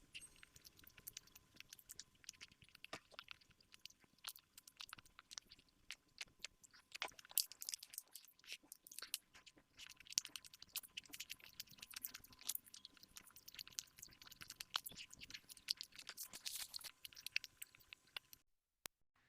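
Chewing cake: irregular small clicks and crunches of the mouth and food, stopping abruptly near the end.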